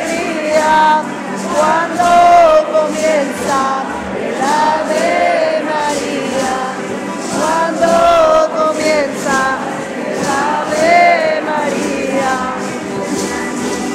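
A mixed group of men and women singing a slow song together, accompanied by stringed instruments strummed in a steady rhythm.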